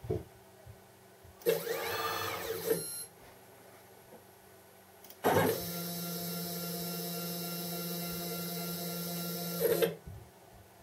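Stepper motors driving the X axis of a homemade CNC router. First comes a short jog whose whine rises then falls in pitch. After a pause comes a longer steady whine as the axis runs back to its home position on an inductive proximity sensor, stopping abruptly near the end.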